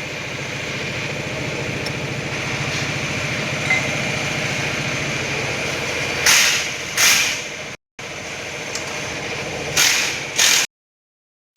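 Steady workshop machine hum, broken by four short, sharp hissing bursts in two pairs. The sound drops out abruptly twice.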